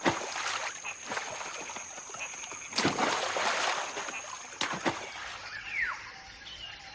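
Water splashing as macaques jump into a river: a splash at the start, a larger one about three seconds in, another a second and a half later. A short falling call near the end.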